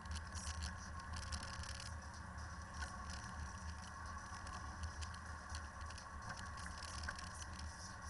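A Land Rover driving over a rough, snow-covered dirt track, heard through a camera mounted on the vehicle: a steady low rumble with constant fine crackling and rattling from the ride's vibration.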